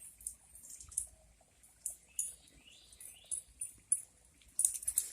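Small birds chirping: scattered short, high-pitched chirps with a few quick rising calls, more frequent near the end.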